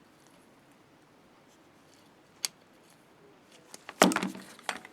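Pliers and small metal terminal parts handled while snugging a wire connection: one sharp click about halfway through, then a flurry of louder clicks and rattling near the end.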